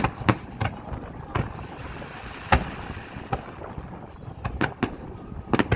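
Fireworks bursting overhead in an irregular series of sharp bangs, several close together near the end, with wind buffeting the microphone throughout.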